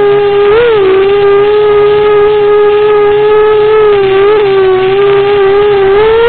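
Eachine 250 racing quadcopter's brushless motors and propellers whining at a steady high pitch in flight. The pitch dips and swells briefly with throttle changes, about half a second in and again near four seconds.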